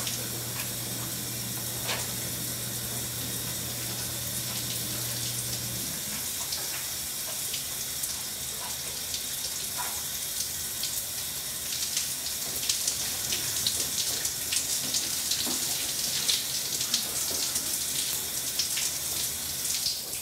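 Water running steadily from a bathroom tap. A low hum under it stops about six seconds in, and light clicks and splashes come through in the second half.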